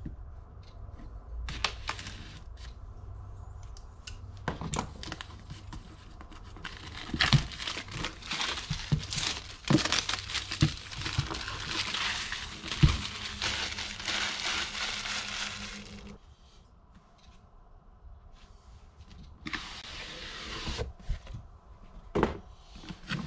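Clear plastic shrink-wrap being torn and peeled off a cardboard product box: scattered clicks and taps at first, then a dense stretch of crinkling and crackling in the middle. After a quieter spell, a short rustle of cardboard and plastic follows near the end.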